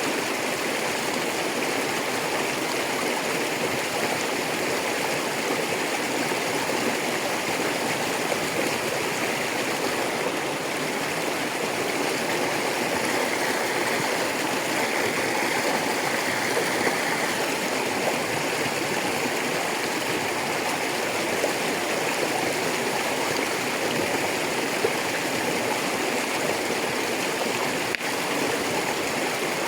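A rocky river flowing steadily over stones, a continuous rushing and gurgling of water.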